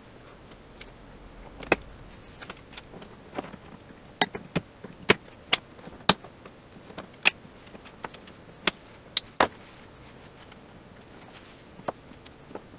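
Irregular sharp clicks and taps of tools and small parts being handled on a flat-screen TV's metal back panel during reassembly. There are about a dozen, bunched in the middle.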